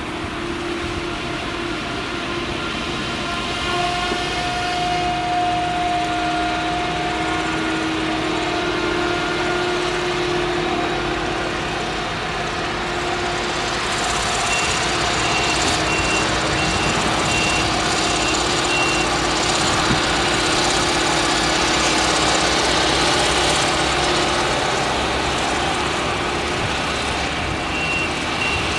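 Claas Jaguar 970 forage harvester's V8 engine running under load while it chops sorghum: a steady, loud drone with a steady hum through it.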